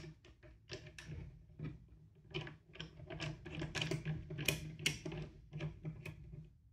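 Small metal tripod thread adapter being handled on a table top: a run of irregular light clicks and taps, several a second.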